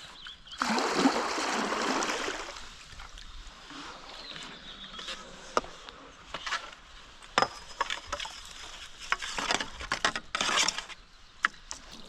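A paddle working in the water, with a rush of splashing early on, then scattered knocks and clatter as the paddle reaches for a floating plastic bottle.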